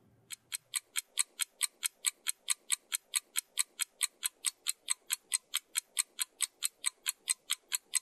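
Ticking clock sound effect, a steady, even run of sharp ticks at about four to five a second, starting a moment in: a timer counting down a pause for discussion.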